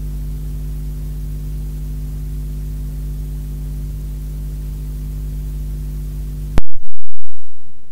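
Steady electrical mains hum with hiss on the recording, cut off by a sharp click about six and a half seconds in. A loud, very low thump follows the click and fades away.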